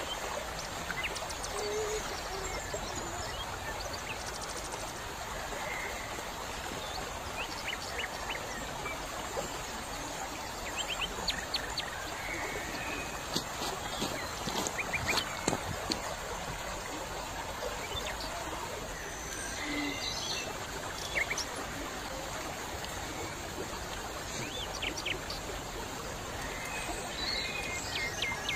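Shallow stream running steadily over a pebbly bed, with small birds chirping now and then.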